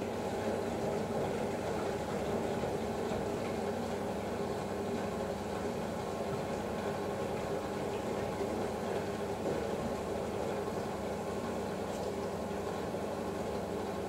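Girbau commercial front-loading washer running a hot wash: a steady motor hum with the swish of water and laundry tumbling in the turning drum.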